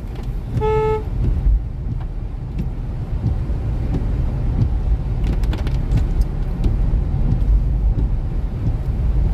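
Inside a Hyundai Venue driving on a wet road: steady low engine and tyre rumble. About half a second in comes one short horn toot.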